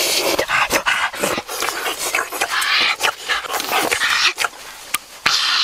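A boy panting hard and crying out in quick, uneven, breathy bursts.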